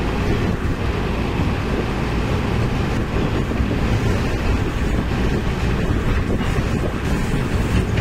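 Tractor engine running steadily as it drives through shallow floodwater, a dense, even low rumble.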